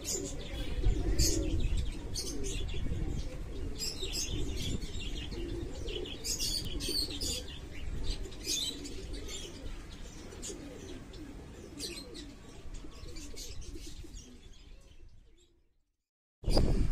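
Pigeons cooing in a loft, wavering low calls repeated throughout, with short high chirps of other birds scattered over them. The sound fades away near the end, drops out briefly, then comes back louder.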